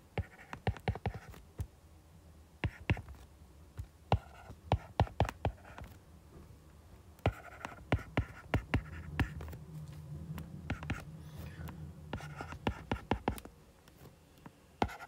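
Stylus tapping and scratching on a tablet's glass screen during handwriting: irregular clusters of sharp clicks, with short pauses between strokes.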